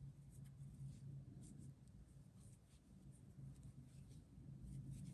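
Faint rustling and light scratches of yarn being drawn through with a crochet hook as a chain is crocheted, over a low steady hum.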